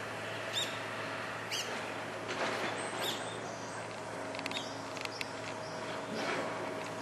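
Steady outdoor background noise with a faint hum, broken by a few short high bird chirps about half a second, a second and a half, and three seconds in.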